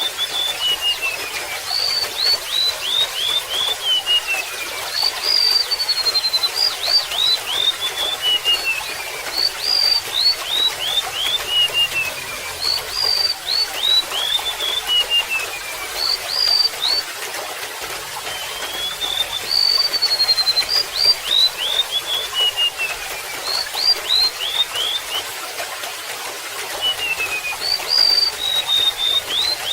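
Golden-bellied gerygone singing: a high, thin phrase of whistled notes stepping down in pitch, repeated every three to four seconds. A steady trickle of water runs underneath.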